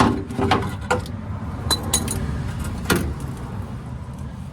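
Metal hand tools clinking and knocking against metal, about half a dozen separate strikes, one ringing briefly about halfway, over a steady low rumble.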